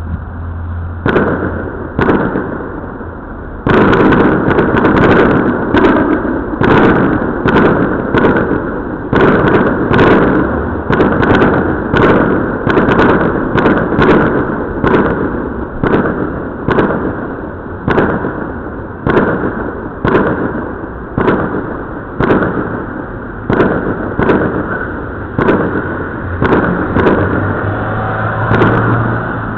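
Aerial fireworks going off in a long, steady barrage of loud bangs, about one or two a second, each trailing off before the next. The barrage becomes much louder about three and a half seconds in. It is heard through a security camera's microphone, which cuts off most of the high end.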